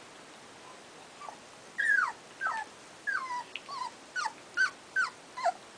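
Puppy whimpering: a run of about eight short, high-pitched whines, each falling in pitch, starting about two seconds in.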